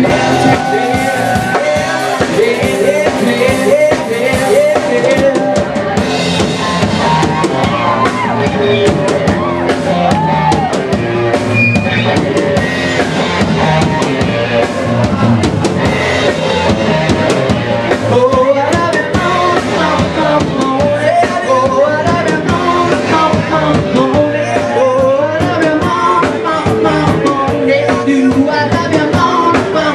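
Loud live band music: a drum kit keeping the beat under a singing voice and amplified instruments, with no break.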